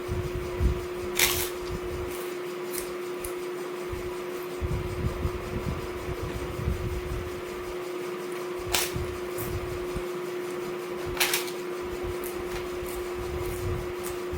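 Steady electric fan hum, with a few sharp clicks and light knocks from eating and handling of utensils or food close to the microphone.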